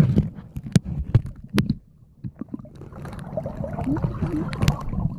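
Underwater sound heard through a camera held below the surface while snorkeling: a low, muffled rumble of moving water with scattered sharp clicks and knocks, dipping briefly near the middle.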